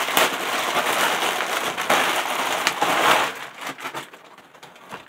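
Packaging being pulled open by hand, rustling and crinkling steadily for about three seconds, then thinning to a few scattered crackles as it quiets.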